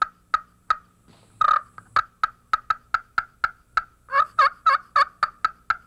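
Slate turkey call with a thin slate top, played with an acrylic striker, doing hen cutting: a run of short, sharp clucks, about four or five a second, imitating an excited hen. The notes come louder and quicker in a flurry about four seconds in.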